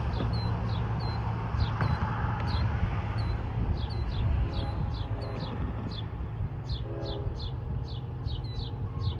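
Bird chirping in a fast, even series of short high notes that slide downward, two to three a second, with a few lower calls in between, over a steady low rumble.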